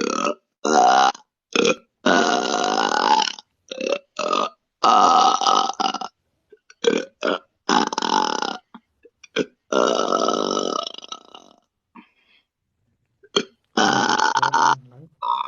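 A woman belching over and over: a string of loud burps, short ones mixed with about five long, drawn-out belches of roughly a second each, with brief silences between them.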